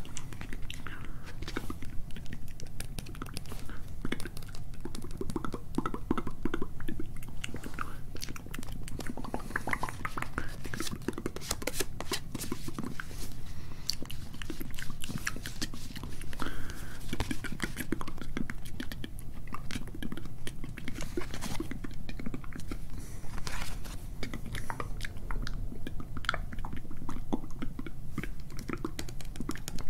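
Close-miked ASMR mouth sounds: inaudible whispering with a dense, continuous run of small mouth clicks and crackles.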